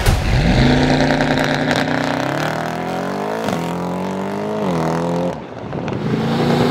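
Mercedes-AMG GT63 S 4-door's twin-turbo 4.0 V8, with catless downpipes and a custom titanium exhaust, accelerating hard. Its note climbs in pitch, drops on an upshift about three and a half seconds in, and climbs again. It briefly fades around five and a half seconds, then pulls again.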